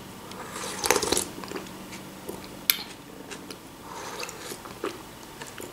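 Close mouth sounds of eating hot chicken broth off a metal spoon: sipping and chewing, with a noisy slurp about a second in and a sharp click near the middle.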